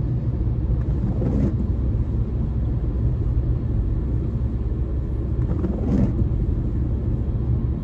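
Steady low rumble of a car's tyres and engine heard from inside the cabin on a wet road, with the windscreen wiper blade sweeping across the glass twice, about a second in and again about six seconds in.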